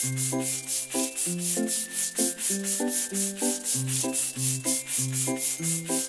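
Children's background music: a melody of short pitched notes over a bass line, with a quick, even swishing beat on top.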